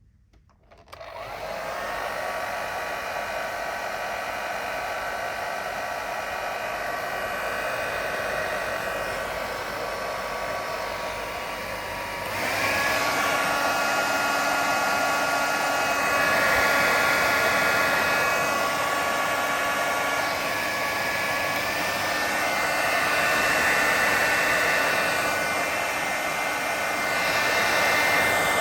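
Hotel hair dryer switched on about a second in, blowing steadily with a whining motor tone, then stepping up louder about halfway through as it goes to a higher setting.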